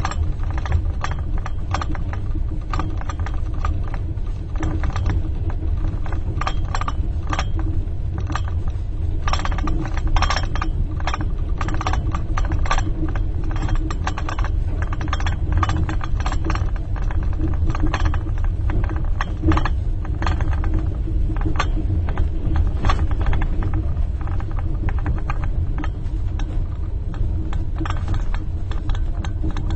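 Steady low rumble of a moving train heard inside a compartment, with a teaspoon rattling and tinkling irregularly against a cup as the carriage shakes.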